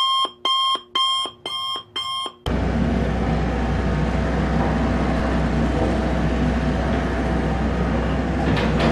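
Five short electronic beeps, about two a second, then the diesel engine of a Komatsu PC78US mini excavator running steadily under work, with a couple of sharp knocks near the end.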